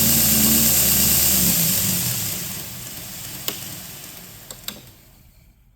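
Torus 3x79 belt grinder running with its belt going forward, vibrating on a wooden table, then switched off about a second and a half in and spinning down until almost silent. A few light clicks sound near the end.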